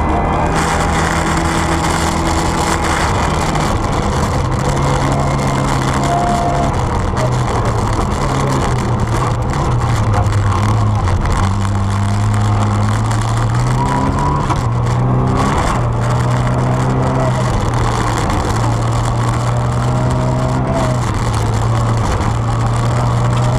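Rally car engine at speed, heard inside the cockpit, its pitch climbing and dropping again and again as the driver works through the gears, over a steady rush of tyre and road noise.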